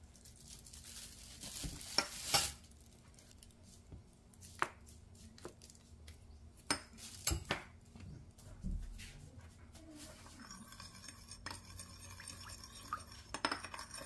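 Metal spoon clinking and tapping against a small ceramic bowl: a handful of sharp separate clinks as syrups are spooned into a soy-based sauce, then quicker clinks near the end as the sauce is stirred.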